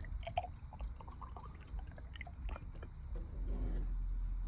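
Red automatic transmission fluid poured from a plastic bottle into a torque converter's hub, with small wet gurgles and scattered drips as the fluid runs in.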